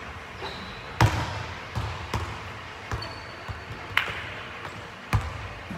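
Basketball bouncing on a hardwood gym floor: a string of sharp thumps at uneven spacing, the loudest about a second in, echoing in the large gym.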